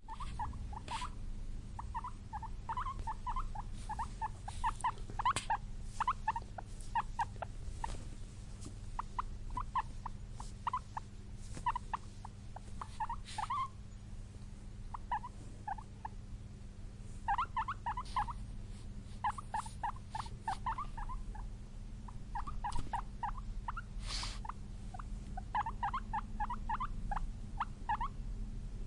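Guinea pig squeaking in quick runs of short chirps, stopping and starting in bouts, over a steady low background hum.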